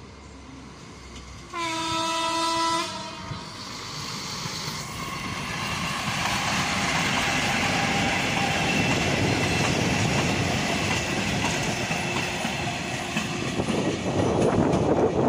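A passenger train of diesel railcars sounds one short horn blast about two seconds in, then runs past, its engines and wheels on the rails growing louder.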